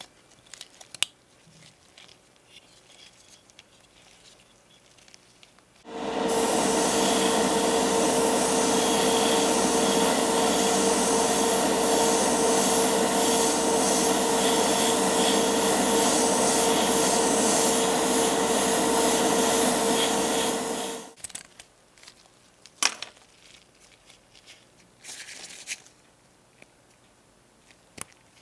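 Small electric motor running steadily with an airy hiss and a constant hum, switching on suddenly about six seconds in and off about fifteen seconds later, as a plastic model engine block is spray-painted. Before and after it, light clicks and taps of plastic kit parts being handled.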